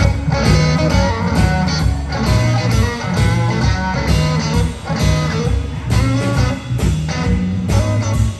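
Live band playing an instrumental passage: electric guitar over electric bass and a drum kit keeping a steady beat.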